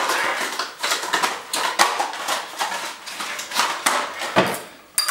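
Small objects clattering and knocking irregularly as someone rummages through a bathroom cabinet.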